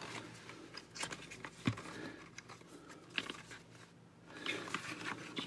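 Faint handling of small-product packaging as it is opened: scattered light clicks and ticks, then soft rustling near the end.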